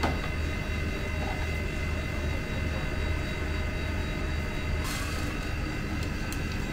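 Steady low mechanical drone with a slow pulse and faint high whining tones, with one short sharp click about five seconds in.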